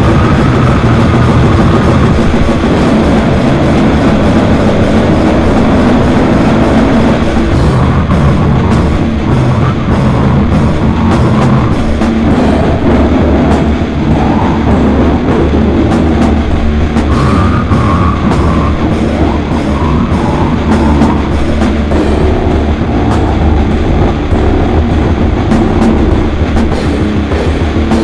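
Loud, dense slam/sludge metal: a wall of distorted instruments over drums, with fast rapid hits from about eight seconds in.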